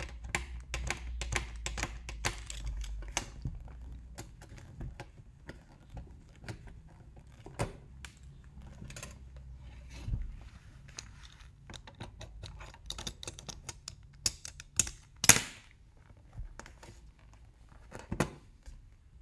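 Craft knife scraping and clicking as it cuts open the seals of a cardboard phone box, mixed with leather-gloved hands handling the box; a run of small scratches and taps, with one louder sharp click about fifteen seconds in.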